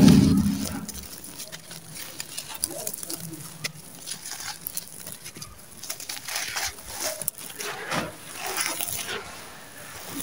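Dry red sand-cement lumps crumbled between bare hands: an irregular gritty crackling with the hiss of grains pouring onto a dirt pile. A loud low sound opens it and fades over about a second.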